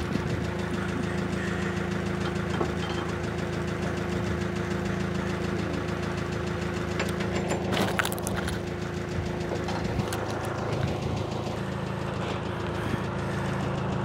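Heavy truck diesel engine idling steadily, with a constant low hum and a few short knocks about eight seconds in.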